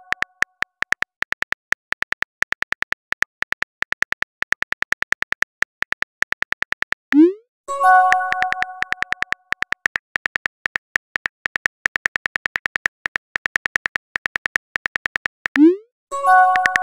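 Simulated phone keyboard clicks, several a second, as a message is typed. This is followed by a short rising pop and a brief multi-tone chime as the message is sent, and the whole pattern happens twice.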